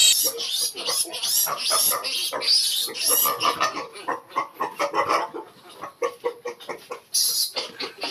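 Three-day-old piglets squealing over and over in shrill, wavering cries. They are distressed from being handled for their injections. The squealing eases briefly about two-thirds of the way through, then comes back loud near the end.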